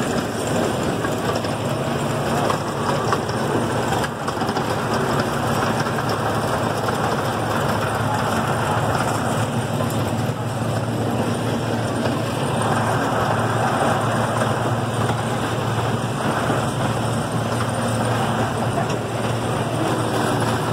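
Chance C.P. Huntington miniature train running along its track, heard from aboard a passenger car: a steady engine drone with the even rumble of the moving cars.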